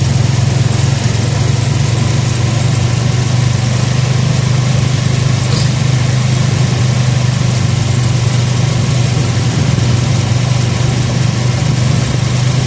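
Honda 155 motorcycle engine running at a steady cruise while riding, a constant low hum with wind and road noise rushing over the microphone.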